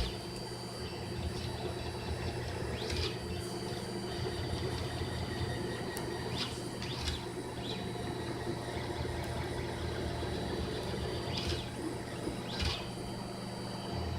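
3D printer at work printing in PETG: a steady low hum from its stepper motors and fan, broken several times by short whirring chirps that rise and fall as the print head makes quick moves.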